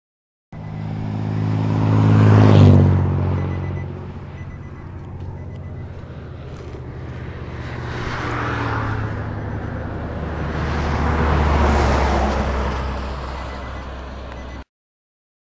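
Motor vehicles passing by: an engine swells to a peak about two and a half seconds in and drops in pitch as it passes, then a lower rumble rises and fades again near the end. The sound starts and stops abruptly.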